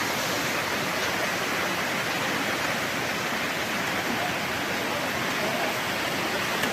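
Steady rush of water from storm flooding, an even noise with no breaks.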